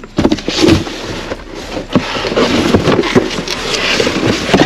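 Plastic bags and cardboard boxes rustling and crinkling as they are pulled about by hand, with irregular knocks and thumps. The crinkling grows denser about halfway through.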